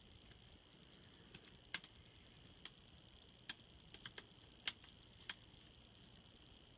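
Light, scattered metallic clicks and ticks of a small Phillips screwdriver and tiny screws being worked into a laptop screen's mounting bracket. There are about ten irregular clicks, over a faint steady high-pitched tone.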